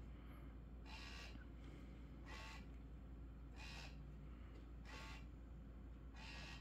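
Faint whirring from an automatic laser cat toy's small motor, five short whirs evenly spaced a little over a second apart as the laser head moves.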